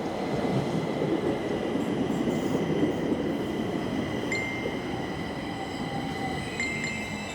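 A train running on rails: a dense rumble that swells up at the start, with a thin, steady high tone held over it.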